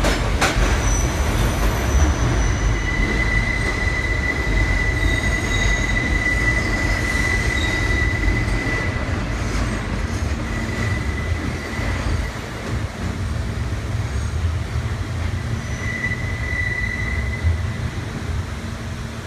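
R160B New York City subway train rolling on curved track with a steady low rumble. A high, steady wheel squeal starts about two and a half seconds in and holds for several seconds, then comes back briefly twice later.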